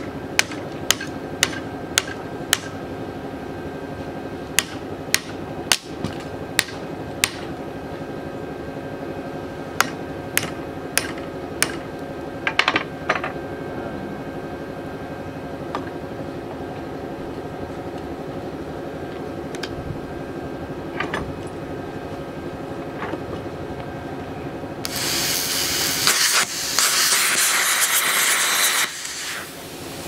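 Hammer blows on a punch against the pulley of a seized 1969 Cadillac Eldorado air-conditioning compressor held in a vise: a series of sharp metallic strikes over the first dozen seconds, to free the pulley. About 25 seconds in, a loud hiss of arc welding on the pulley hub starts and stops near the end.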